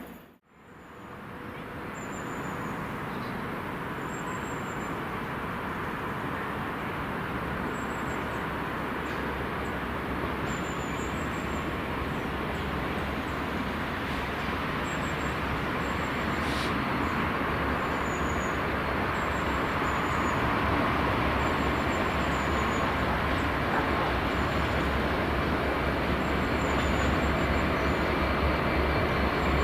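Freight train approaching: a steady rumbling rush that fades in from a brief silence just after the start and grows slowly louder, with a deep drone strengthening toward the end.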